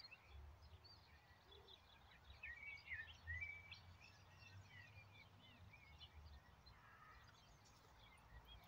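Near silence with faint bird chirps and short twittering calls, thickest about two to four seconds in, over a low background rumble.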